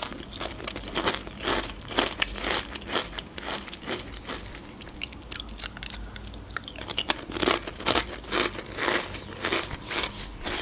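Ridged Lay's potato chips being bitten and chewed close to the microphone, a steady run of crisp crunches.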